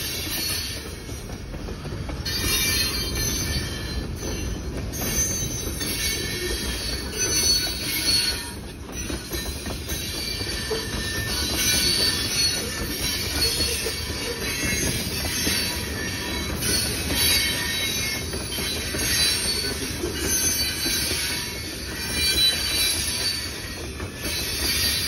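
Freight train of tank cars rolling past close by: a steady low rumble of steel wheels on rail with clattering over the joints, and intermittent high-pitched wheel squeal.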